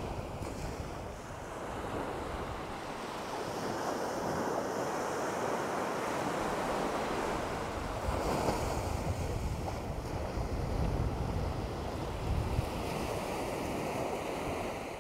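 Small waves breaking and washing up onto a sandy beach, the surf swelling and easing, with wind buffeting the microphone.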